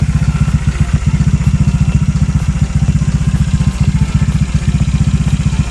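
Honda Click 150 scooter's single-cylinder engine idling steadily through a Replica Pro ratlook aftermarket silent exhaust, a low, even exhaust note.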